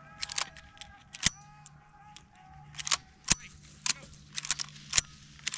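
Shotgun shots fired irregularly: a string of sharp reports, some louder and some further off, the loudest about a second in and just past three seconds in.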